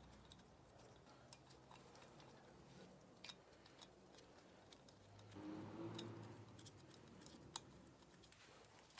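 Near silence with a few faint scattered ticks and clicks, and a faint low hum swelling briefly a little past the middle.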